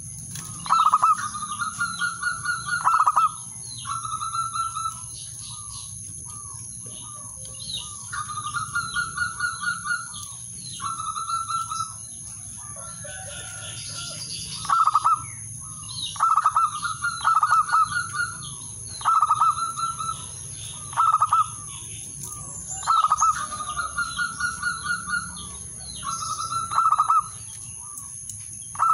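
Male zebra dove (perkutut) singing its staccato cooing song: about a dozen phrases, each a loud opening note and then a quick run of ringing coos, repeated with short pauses. A steady high-pitched whine runs beneath it.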